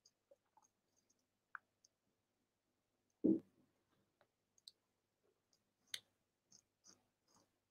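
Faint, scattered clicks and taps of a computer mouse and keyboard, with one louder dull thump about three seconds in and a sharp click about six seconds in.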